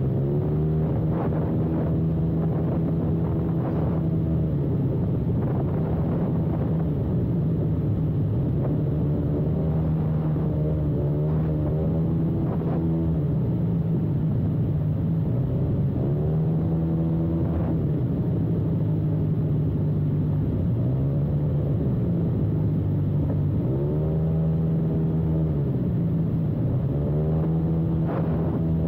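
Maxi-scooter engine running under way, its pitch rising and falling again and again as the throttle is opened and eased off.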